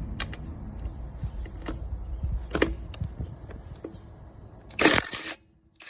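A cordless brushless 20V impact wrench gives a short burst of about half a second on a truck's lug nut near the end, cutting off suddenly. Before it there are a few sharp clicks over a low rumble.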